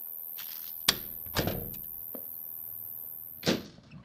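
A door being opened and shut: a sharp latch-like click about a second in, a dull thump just after, and a door swinging closed near the end, after which the steady high background sound cuts off.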